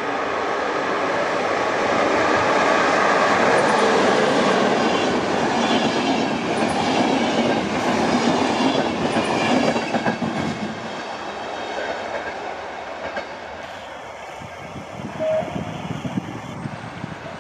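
Electric-hauled passenger train passing close by, its coaches' wheels running over the track. The noise builds to its loudest a few seconds in, stays loud while the coaches go by, then fades after about ten seconds as the train draws away.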